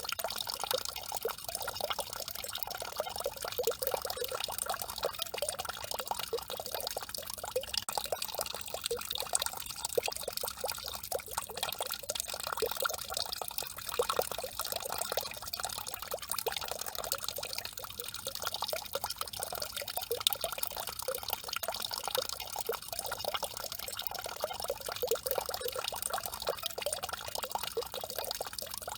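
Peeing-statue fountain, its stream of water splashing steadily into the water below.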